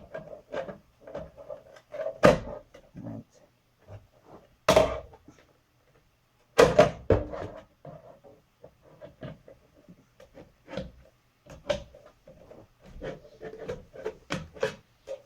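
Irregular knocks and clatter of a plastic drink holder being handled and tried against an exercise bike's seat handlebar, with the loudest knocks about 2, 5 and 7 seconds in.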